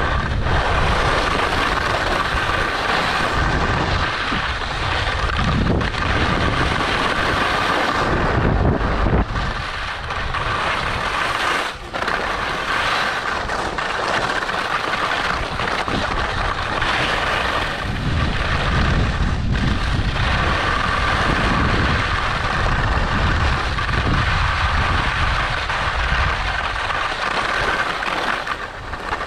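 Line skis running and scraping over firm, groomed snow in a steady hiss, with wind rumbling on the camera's microphone; the scraping eases off briefly a few times.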